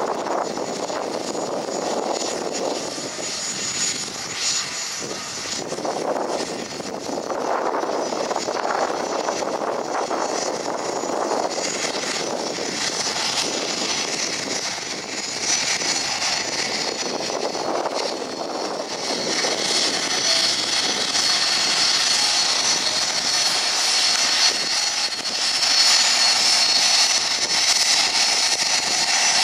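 Cessna Citation Sovereign business jet taxiing at low power, its twin Pratt & Whitney Canada PW306C turbofans giving a steady high-pitched whine over a duller rush. The whine grows louder and shriller about two-thirds of the way in.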